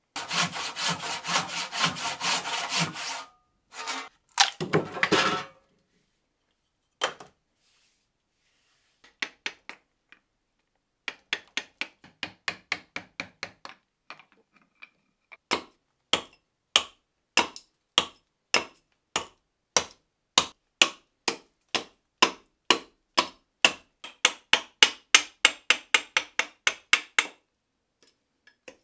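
Dense scraping and rubbing on the rough, bark-covered end of a carob log. Then a long run of sharp strikes of steel edge tools biting into the dense wood, roughly two a second, coming faster near the end.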